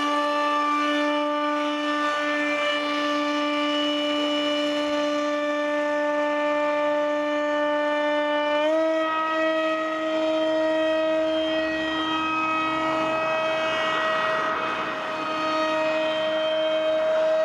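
Electric motor and propeller of a small foam RC park jet, whining at a steady pitch. The pitch steps up slightly about halfway through.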